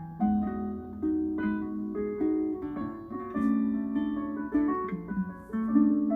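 Background instrumental music of plucked strings, a steady run of notes changing several times a second.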